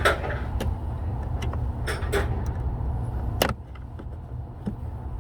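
A motor vehicle running nearby, a steady low rumble, with a few light clicks and one sharp knock about three and a half seconds in.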